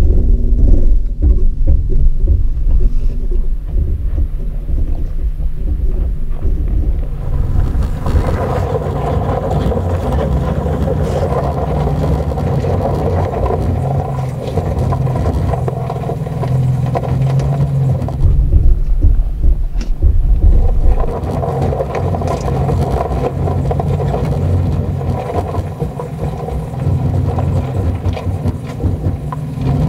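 The 2020 Toyota 4Runner TRD Pro's 4.0-litre V6 running at low speed on an off-road trail, with tyres rolling over gravel and rocks. The low rumble swells and falls as the truck moves.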